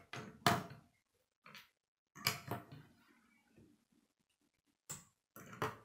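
Plastic K'nex rods and connectors clicking as they are snapped together and set down on a wooden table: a string of short, sharp clicks and knocks with brief pauses between them.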